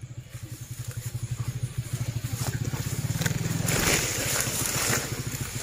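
A small motorcycle engine running with rapid, even firing, its pitch and loudness rising briefly about three seconds in and then easing off. A rustle of leaves brushing past comes around four seconds in.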